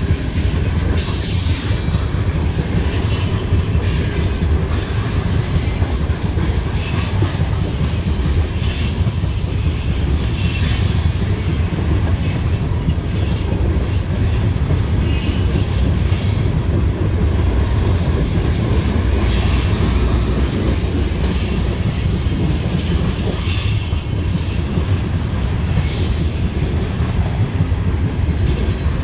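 Railroad tank cars of a freight train rolling steadily past: a continuous low rumble of steel wheels on rail, with scattered clicks and clacks as the wheels cross rail joints.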